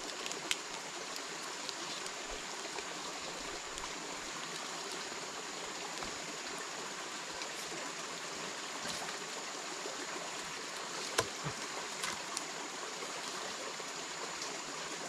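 Steady rushing of a flowing stream, with a thin, steady high-pitched tone over it and a few faint clicks about eleven to twelve seconds in.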